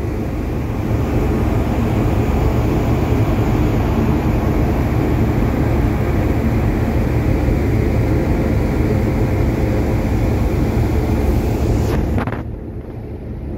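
Wind on the microphone over the low, steady rumble of a car ferry under way at sea. The noise drops suddenly near the end.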